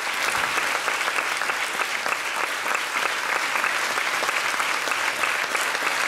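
Theatre audience applauding the cast at a curtain call: many hands clapping in a steady, dense patter.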